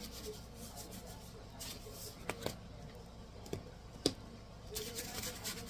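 A few light clicks and knocks with short rustles over a steady low hum, the sharpest click about four seconds in.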